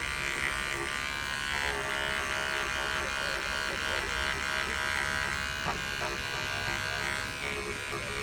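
Electric shaver buzzing steadily as it is run over a car parcel shelf's fabric, shaving off the fuzz and pilling. A short click about six seconds in.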